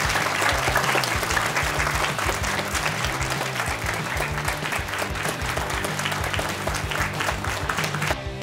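A small audience applauding over background music; the clapping stops near the end, leaving the music alone.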